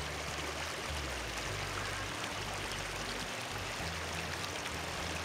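Shallow stream running over a gravel bed, a steady rush of water.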